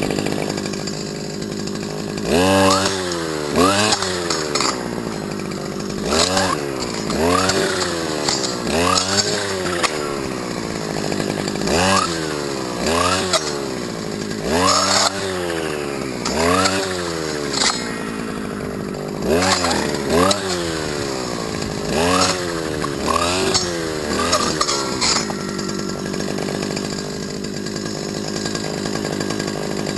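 STIHL FS250 brushcutter's two-stroke engine revved in repeated short throttle blips, each a quick rise and fall in pitch, roughly once a second. It settles back to a steady idle near the end.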